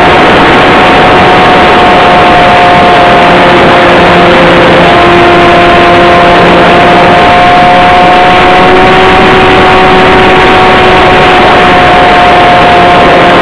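Radio-controlled model airplane's motor and propeller running steadily under heavy wind rush, heard from a camera riding on the plane. The drone holds a steady pitch that shifts slightly a few times, and the whole is very loud.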